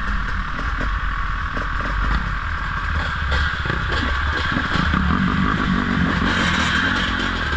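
Dirt bike engines running at low trail speed, with the rattle and clatter of the bikes over rough ground.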